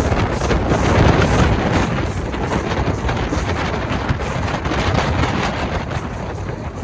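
Rushing wind buffeting a phone microphone held outside a moving passenger train, over the rumble of the double-decker coach running along the track.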